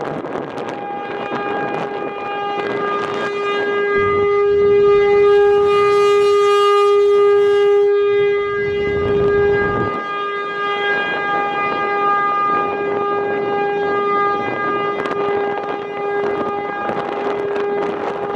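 American Signal T-135 electromechanical tornado siren sounding a steady alert tone while its head rotates; the tone swells for several seconds as the horn sweeps toward the listener, then eases as it turns away. Wind buffets the microphone while the siren is at its loudest.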